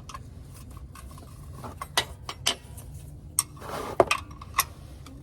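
Metal hand tool clinking and scraping against a tight fitting under a car while it is being worked loose for an oil change: a few sharp irregular clinks, the loudest about four seconds in, after a brief scrape.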